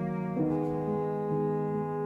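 Background music: slow orchestral instrumental with mellow horn-like tones over low sustained strings, moving from note to note.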